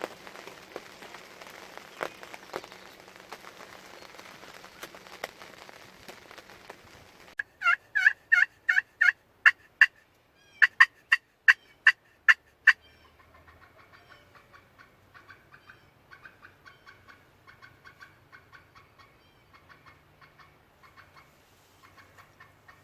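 Two runs of loud, sharp turkey yelps, about three notes a second, begin about seven seconds in with a short break between them. Before them there is a soft hiss with scattered ticks; after them come fainter, rapid repeated bird notes.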